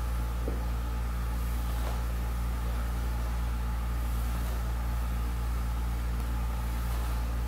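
Steady low hum with a faint even hiss: constant background machine or electrical noise, with no clear sound from the exercise itself.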